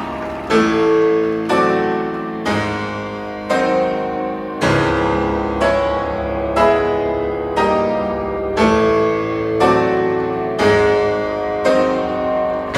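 Recorded piano music over loudspeakers: a slow chord struck about once a second, each left to ring out before the next, over low held bass notes.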